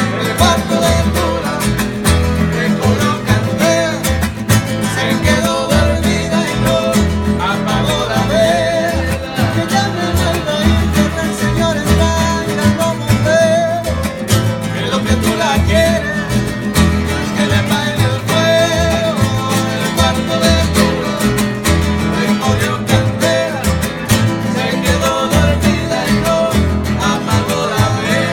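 Live acoustic music: a nylon-string guitar strummed and picked, with an upright double bass plucking a steady, evenly spaced bass line beneath, and a man singing over them.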